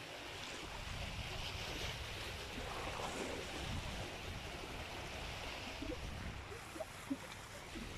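Sea surf washing against a rocky shore, a steady rushing wash with a low rumble of wind on the microphone.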